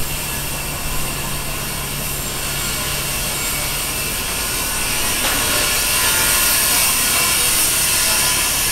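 A power tool running steadily at a shop fit-out, a loud hiss over a low hum, growing louder for a few seconds and then stopping suddenly near the end.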